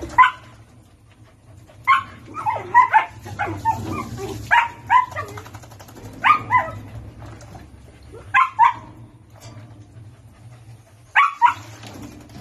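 Dog barking: short, sharp barks, mostly in pairs, repeating every second or two over a low steady hum.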